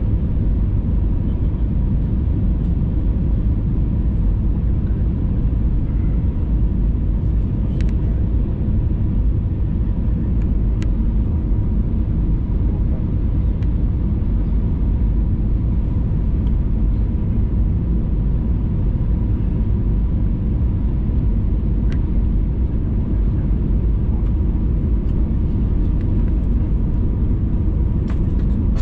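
Steady cabin noise of an Airbus A320neo on final approach, heard from a window seat: engine and airflow noise, mostly low, with a faint steady high tone.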